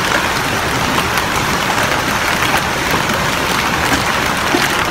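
Hail mixed with heavy rain falling on a street and pavement: a dense steady hiss with many small sharp clicks of hailstones striking the hard ground.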